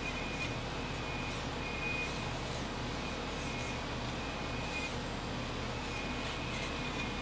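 The hydraulic pump of a 1/14-scale RC hydraulic excavator runs steadily. A high whine comes and goes every second or so as the boom and bucket are worked and the pump takes up load.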